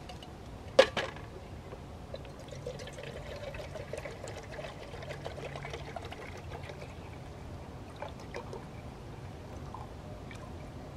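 Water poured from a plastic bottle into a titanium camp pot, trickling for several seconds. A single sharp knock about a second in is the loudest sound.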